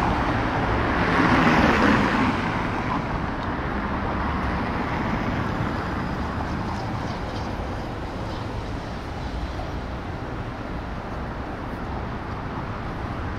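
City street traffic: a car passes close by, loudest about one to two seconds in, then fades into steady traffic noise.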